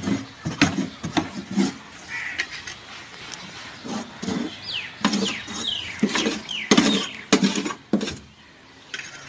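A pad dabbing and wiping Fevicol adhesive onto the freezer's copper cooling coil: a string of short, irregular rubbing and tapping sounds, busiest past the middle. A few short, high, falling squeaks come about halfway through.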